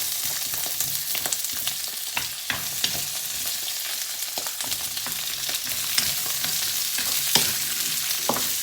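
Loud sizzling of food frying in hot oil, starting suddenly as bell pepper pieces go into the pan. A spatula stirs and taps against the pan with scattered clicks and scrapes.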